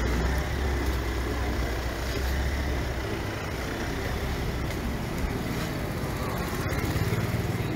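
A motor vehicle's engine rumbling past on a city street over steady traffic noise; the low rumble dies down about three seconds in.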